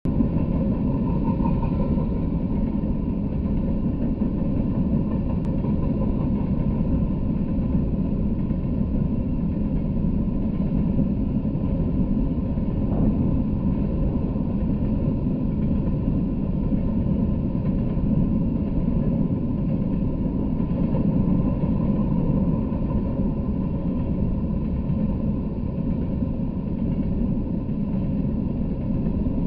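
Freight train of open-top hopper cars rolling past at steady speed: a continuous low rumble of steel wheels on the rails.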